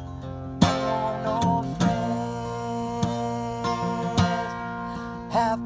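Steel-string acoustic guitar strummed in a slow, steady rhythm, a strong strum about every 1.2 seconds. A man's singing voice comes in over it briefly about a second in and again near the end.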